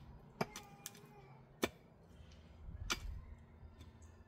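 Kitchen utensils and dishes being handled: four sharp knocks and clinks at uneven intervals over a faint low hum.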